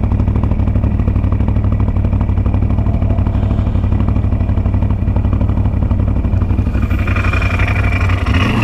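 ATV engine running steadily at low speed under way, with a fast, even pulse; a higher whine joins in near the end.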